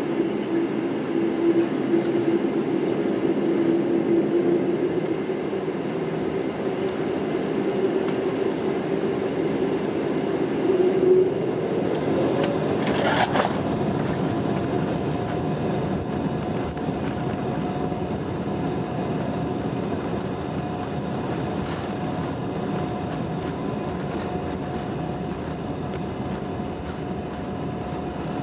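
Cabin noise of a Boeing 747-8i taxiing: the steady rumble of its GEnx engines at taxi power, heard from inside the cabin. A whine rises sharply in pitch about halfway through and then holds at the higher pitch.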